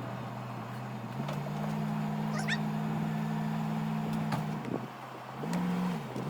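A vehicle's engine running steadily, its pitch stepping up about a second in, dropping back near the fifth second and rising briefly again near the end.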